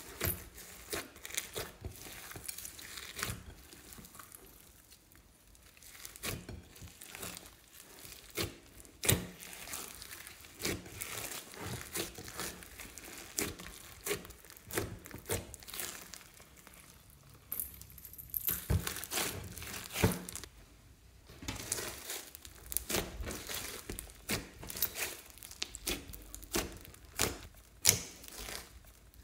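Sticky slime mixed with foam beads and glitter being squished, kneaded and stretched by hand, giving a dense, irregular run of wet clicks and crackles with a few louder snaps.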